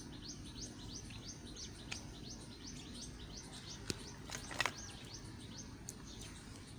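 Small birds chirping over and over, quick falling notes at about three a second. A couple of sharp clicks come near four seconds in, and just after them a brief scraping sound, the loudest moment.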